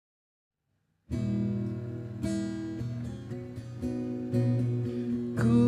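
Acoustic guitar strumming chords, starting suddenly about a second in and changing chord roughly every second. A voice begins singing near the end.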